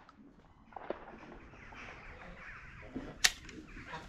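A single sharp shotgun shot about three seconds in, from a Bora 12-gauge semi-automatic shotgun firing birdshot.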